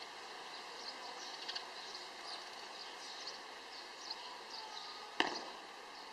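Birds chirping again and again over a steady faint background drone, with one sharp stamp about five seconds in: a Chen-style tai chi practitioner bringing his foot down on stone paving.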